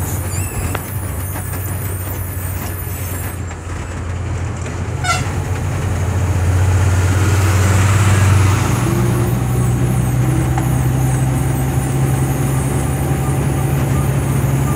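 Vehicle engine running steadily, heard from inside the cabin. Its low drone steps up in pitch about eight seconds in, just after a rush of hiss rises and fades.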